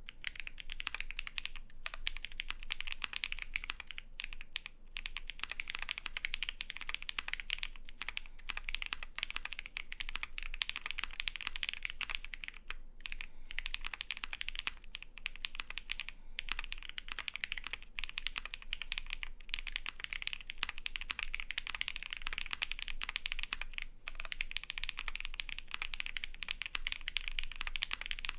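Continuous fast typing on a custom mechanical keyboard with lubed Holy Panda tactile switches on a polycarbonate plate, fitted with GMK keycaps and case foam: a dense stream of key clacks with brief pauses every few seconds.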